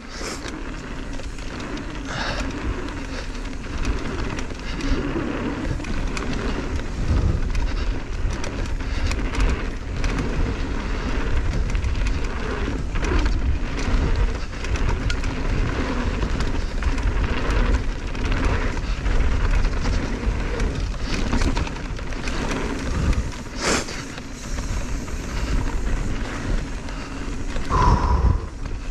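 Wind buffeting a helmet-mounted action camera while a downhill mountain bike rolls down a rough dirt trail, with steady tyre noise and frequent clatter and knocks from the bike over roots and rocks. A brief squeal near the end.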